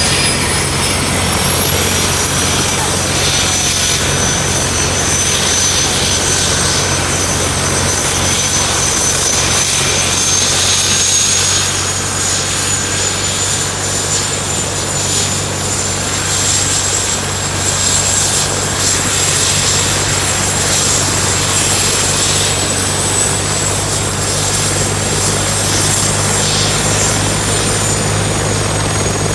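Military helicopter's turbine engine running with a high whine that rises in pitch over the first few seconds and then holds steady, over a steady low drone.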